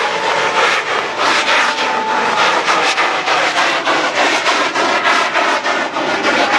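Chinese wheel firework spinning as it burns: a loud continuous hissing rush that pulses rapidly with its rotation, with a faint whistle about two seconds in.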